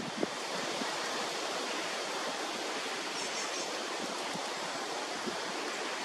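Steady rushing outdoor noise, like wind in the trees, with a few faint high chirps about halfway through.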